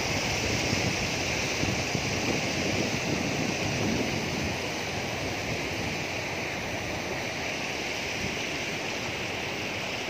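Steady rush of river water flowing fast over rock ledges and small cascades, with light wind buffeting the microphone in the first few seconds.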